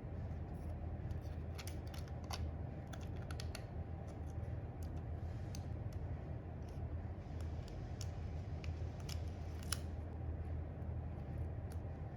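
Scattered small plastic and metal clicks and taps from parts being handled during a motherboard replacement, coming at irregular intervals over a steady low hum.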